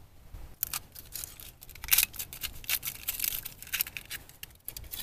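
Crinkling and rustling of a wrapping being handled and pulled off a small stainless cup, a quick, irregular run of sharp crackles.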